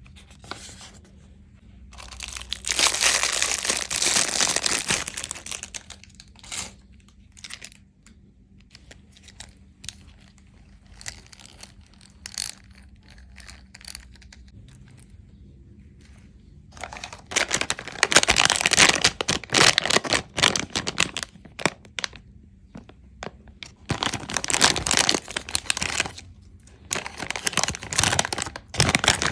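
Candy packaging being torn open and crinkled by hand, in several loud bursts with scattered small crackles between them.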